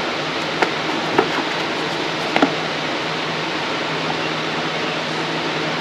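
Steady fan-like hum, with a few light taps and knocks, about three in the first two and a half seconds, as a small cardboard parts box is handled in gloved hands.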